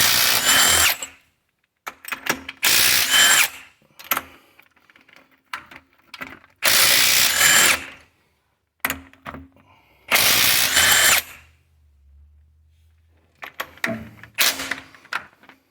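A power tool spinning out the cylinder-head bolts of a small three-cylinder John Deere diesel: four runs of a second or so each, with a high whine, separated by short pauses with light metal clinks.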